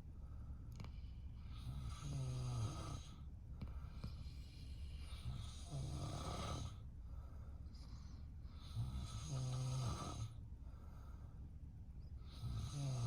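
A man snoring in his sleep. Each snore lasts about a second and comes roughly every three and a half seconds.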